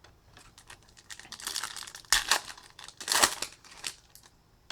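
Wrapper of a Topps Chrome baseball card pack being torn open and crinkled by hand, a run of crackling with two louder rips near the middle and latter part.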